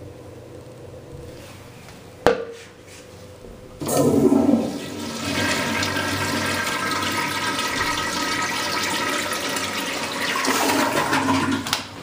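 A 1949 Standard Madera toilet flushing through its exposed flush valve. A sharp click comes about two seconds in. About four seconds in, a loud rush of water starts suddenly, settles into a steady run while the bowl swirls, and stops abruptly near the end as the valve closes.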